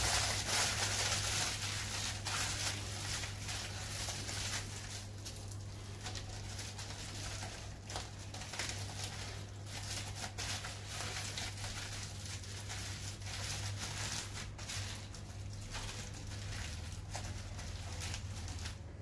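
Aluminium foil crinkling and crackling as it is folded and crimped by hand around a chicken drumstick to close a foil packet, in irregular rustles, busiest in the first few seconds, over a steady low hum.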